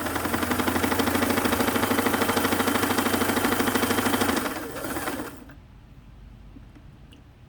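Singer 327K sewing machine running at speed, sewing a row of zigzag stitches: a fast, even clatter of needle strokes over a steady motor hum. It eases off about four seconds in and stops about a second later.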